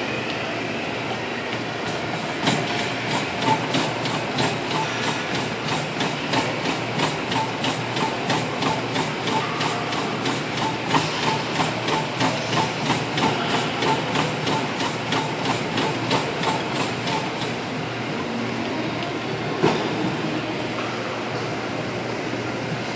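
Fast running footfalls on a motorized treadmill belt set to 10–12 mph, about three strides a second, over the steady hum of the running treadmill. The footfalls stop about 17 seconds in while the belt keeps running, and a single knock comes near 20 seconds.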